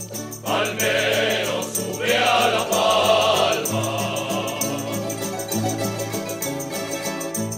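Background music: voices singing together over steady bass notes, with a fast, even shaker-like ticking. The singing comes in about half a second in.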